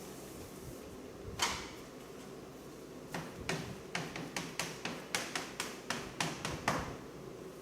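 A single sharp tap, then a run of about a dozen quick taps at roughly three a second.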